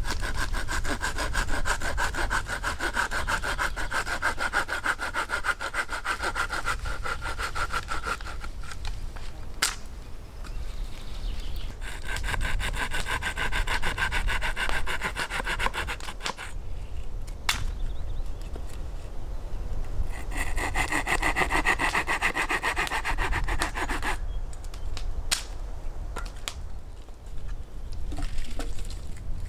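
Hand saw cutting through wood in three long bouts of quick, even strokes, with a single sharp knock in each pause between bouts.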